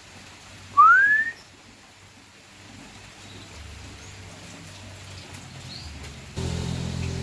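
A canary gives one short whistled note that rises in pitch, about a second in. Near the end a low steady hum starts suddenly.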